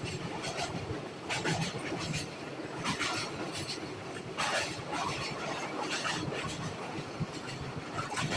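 Express train running at speed, with a steady rumble and a sharp clatter of the wheels over the rail joints about every second.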